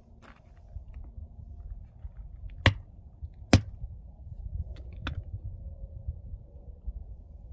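Hammer striking a rock to crack it open: two sharp, loud blows a little under a second apart, then a fainter knock about five seconds in, over a low rumble.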